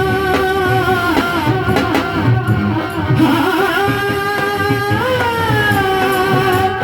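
Instrumental passage of a Hindi devotional bhajan: a sustained melody line that glides in pitch in places, over a steady drum beat.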